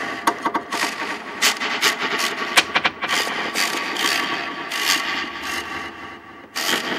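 Dense, irregular clattering and scraping noise in an experimental music track, starting suddenly. It dips briefly near the end and comes back abruptly.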